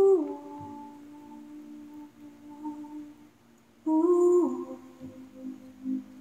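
A woman humming a slow wordless melody into a close microphone, with no backing. It comes in two phrases: each opens on a loud held note that slides down to a lower sustained note, the second starting about four seconds in. Near the end there is a short run of wavering notes.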